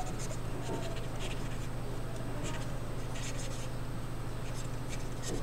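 Marker pen writing on a sheet: a run of short scratching strokes as letters are drawn, over a steady low hum.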